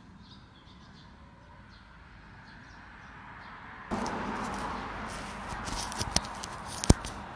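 Faint outdoor ambience with small high chirps. About four seconds in, the sound jumps to a louder rushing background, followed by a few sharp clicks and knocks near the end: a clip-on wireless microphone transmitter being handled and fitted.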